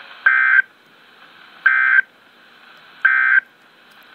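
Emergency Alert System SAME data tones: three short warbling digital bursts, each about a third of a second long and about a second and a half apart. This is the End of Message (NNNN) code that closes an EAS alert.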